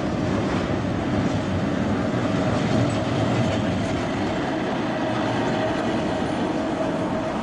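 Vintage heritage tram running past on street track: steady rumble of wheels on the rails and running gear, with a steady tone held throughout.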